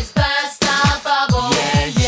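Pop music soundtrack with a kick-drum beat and a pitched melody.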